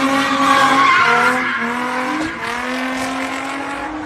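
Car engine held at high revs while drifting, spinning its tyres, with tyres squealing; the engine pitch wavers up and down as the car slides around.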